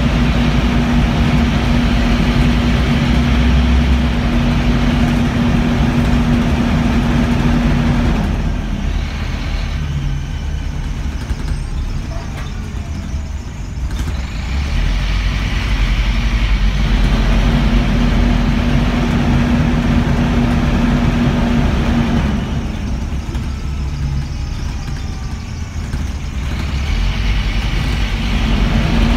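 Rear-mounted engine cooling fan of a Scania N230UB bus roaring loudly with a steady hum. The roar drops away about eight seconds in, comes back about eight seconds later, drops again and returns near the end. The fan runs on like this because of a broken cooling fan sensor.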